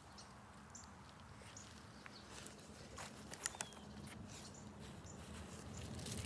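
Faint outdoor ambience with scattered light clicks and rustles and a few short, high bird chirps. There are two sharper clicks about halfway through.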